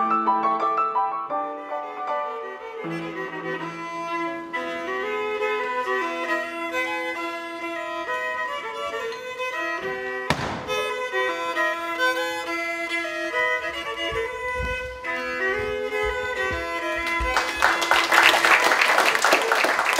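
Fiddle playing a traditional dance tune, with a sharp knock about halfway through and a few low thumps after it. Applause breaks out near the end over the last notes.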